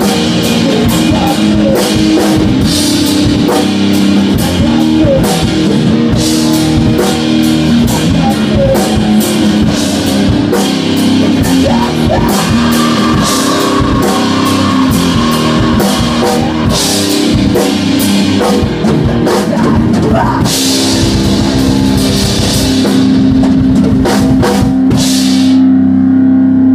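Live rock band playing loud: a drum kit with steady beats and cymbal crashes under a distorted electric guitar. The music stops abruptly at the end.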